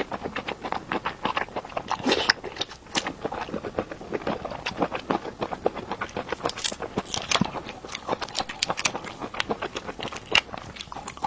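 A person chewing and biting food close to the microphone, with dense, quick wet clicks and crackles throughout.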